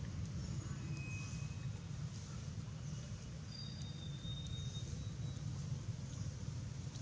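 Outdoor ambience: a steady low rumble with a few short, faint, high bird calls.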